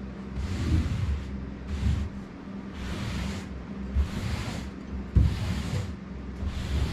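Carpet being rubbed and pressed down onto a deck coated with contact cement: a swishing stroke about once a second, over a steady low hum.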